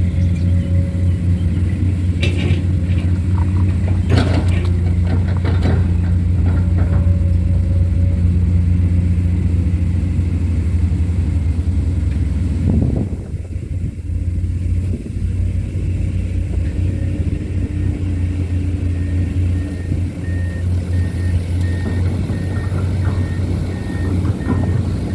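Heavy diesel engine of the earthmoving machinery running steadily with a deep hum, with a few sharp knocks in the first several seconds. About halfway through the engine sound drops briefly, then carries on.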